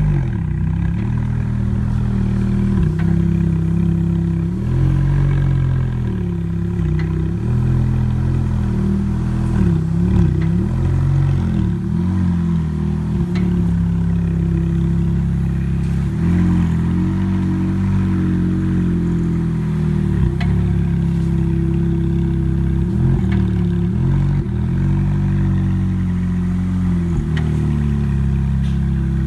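Ferrari F430's V8 engine running at low revs, the pitch dipping and rising slightly, as the car rolls in reverse, with faint intermittent clicks from the rear. The clicking happens only in reverse and does not come from the tires or brakes; its cause is unknown.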